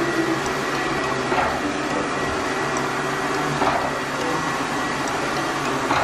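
OKP Life K2 robot vacuum running on a tile floor: a steady whirring hum with a thin, faint high whine.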